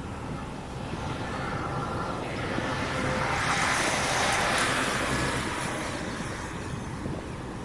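A car passing on the road alongside, its tyre and engine noise swelling to a peak about halfway through and then fading away.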